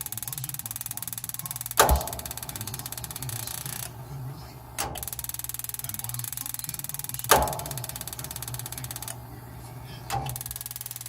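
Furnace mechanism running with a steady hum, overlaid twice by a rapid ticking buzz of about four seconds. Each buzz is broken by a sharp thunk, with a fainter knock where it stops.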